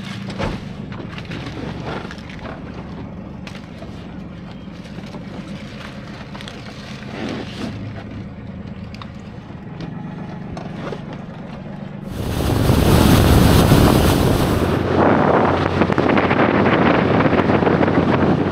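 Small boat's engine running with a steady low hum; about twelve seconds in, a much louder rushing noise takes over and runs on, loudest for the first few seconds.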